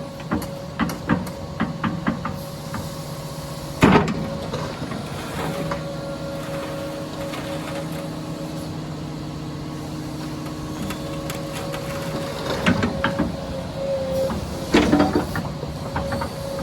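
Komatsu PC210 crawler excavator running, a steady engine note with a constant higher tone over it. A quick run of clicks comes at the start, one sharp clank about four seconds in, and bursts of knocking and clanking around thirteen and fifteen seconds.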